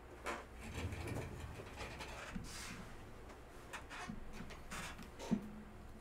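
Faint, scattered handling noises: light knocks, rubs and clicks of objects being moved, the sharpest click about five seconds in.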